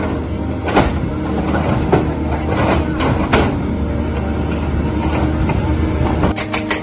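Heavy construction machinery running with a steady low diesel engine drone, with several sharp clanks and knocks in the first half.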